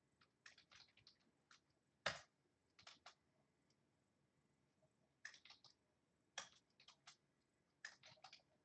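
Faint typing on a computer keyboard in short, irregular bursts of key clicks, with one louder tap about two seconds in.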